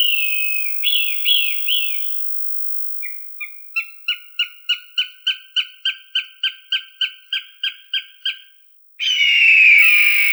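Hawk calls: a few short calls sliding down in pitch, then a rapid, even run of clipped notes at about three a second for some five seconds. Near the end comes one long, harsh scream falling in pitch.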